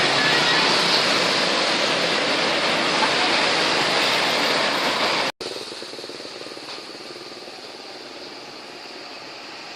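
Loud rushing noise of road traffic, with no horn sounding, cutting off suddenly about five seconds in to a quieter, steady hum of vehicles.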